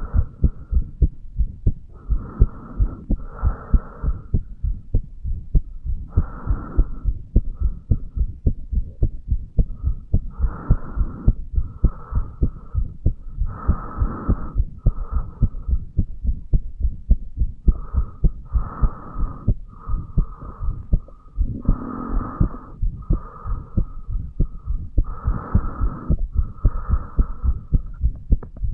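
A human heart beating steadily and regularly, recorded on the chest over the mitral valve area. A soft higher hiss swells and fades every second or two over the beats.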